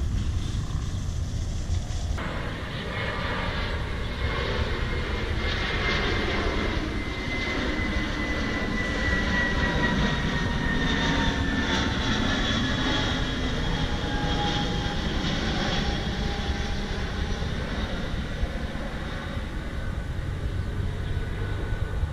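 Airliner flying low overhead on approach to land. Its engine whine falls slowly in pitch as it passes, loudest about halfway through, over a steady low rumble.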